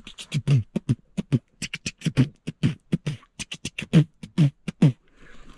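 A man beatboxing: a quick run of short vocal hits and clicks, several a second.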